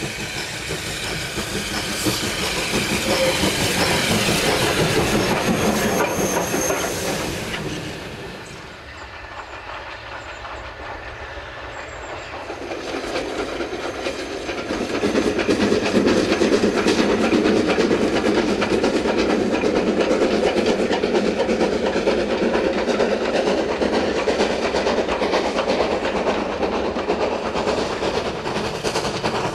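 War Department Austerity 2-10-0 steam locomotive working a train, with the noise of its running and its wheels on the rails. The sound fades about eight seconds in, then builds again and stays loud.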